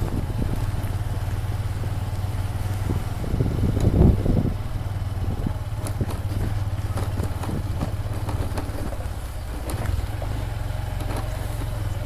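Motorcycle engine running as the bike rides along a rough dirt lane, with scattered knocks and one louder jolt about four seconds in.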